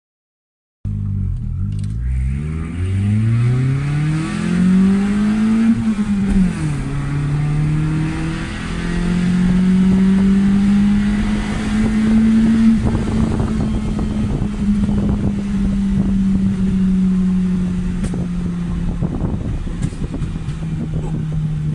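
Proton Waja's four-cylinder engine, with an ECU remapped for pop and bang, pulling hard with revs rising, dipping briefly about six seconds in, then climbing again. Over the second half the revs fall slowly off the throttle while the exhaust crackles and pops repeatedly on the overrun.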